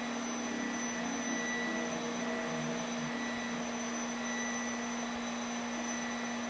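Steady hum with a hiss underneath, holding one low pitch with fainter high tones above it and not changing.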